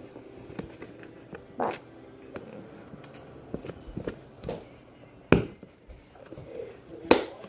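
Plastic slime container lid being worked shut: small taps and clicks, with two sharp snaps about five and seven seconds in.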